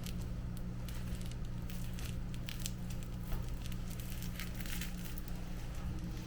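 Light rustling and crinkling, a scatter of short crackles, over a steady low hum.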